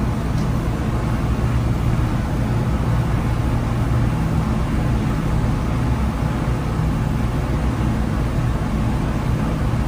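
Steady low machinery hum, an even drone with a few faint low tones that does not change.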